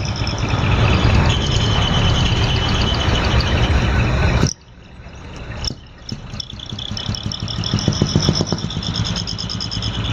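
Heavy diesel truck engine running with a deep rumble. About four and a half seconds in the sound drops away abruptly, then the engine builds back up, with a high pulsing tone sounding above it.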